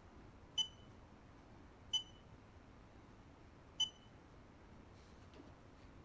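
XWYWX XF4A arc fusion splicer giving three short high beeps as its touchscreen menu is tapped, the beeps about one and a half to two seconds apart.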